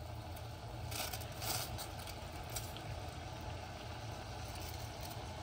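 Chai of water, tea leaves and sugar boiling in a pan: steady bubbling over a low rumble, with a few short, louder hisses between one and two and a half seconds in.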